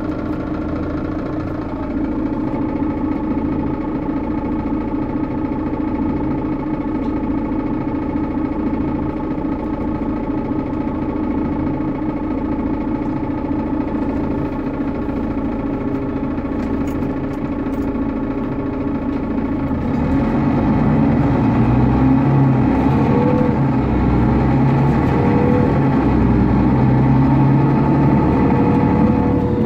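Diesel engine of a Mercedes-Benz Citaro O530G articulated bus idling steadily. About two-thirds of the way in it grows louder and deeper, with short rising whines, as the engine comes under load.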